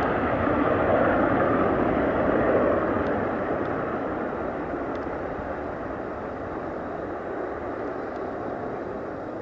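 Military jet aircraft engine noise, a steady rush that is loudest for the first few seconds and then fades away.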